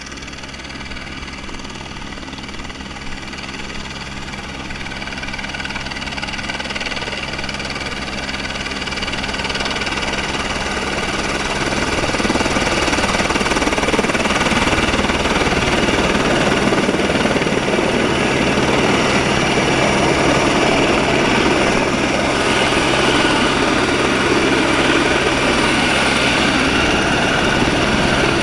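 Helicopter running on the ground, a steady engine-and-rotor sound that grows louder over the first dozen seconds as it is approached, then holds steady and loud close beside the aircraft.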